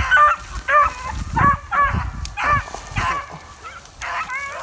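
Beagles baying in short, repeated barks, about two a second, as they run a freshly jumped rabbit on its scent.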